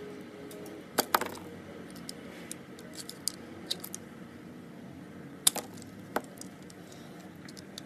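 Utility knife blade cutting into a painted bar of soap: crisp clicks and cracks as the blade breaks through, the loudest about a second in and again about five and a half seconds in, with fainter ticks between.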